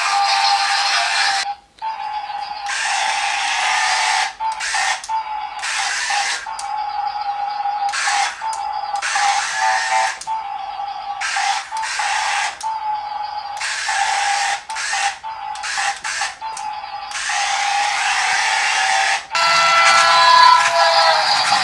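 Small electric drive motors and plastic gears of a toy remote-control car whirring in short runs, cutting out and starting again every second or so as it drives and stops.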